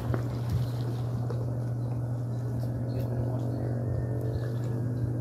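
Kayak paddle dipping and splashing in pool water as a wheelbarrow boat is paddled along, over a steady low hum.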